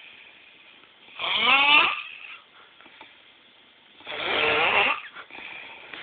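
A man snoring: two loud snores about three seconds apart, each lasting about a second, the first rising in pitch, with quiet breathing between them.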